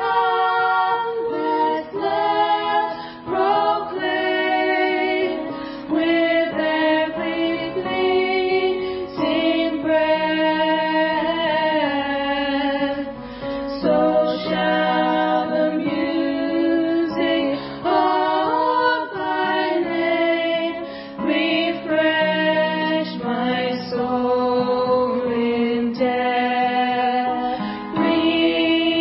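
Voices singing a slow hymn, each note held for a second or two.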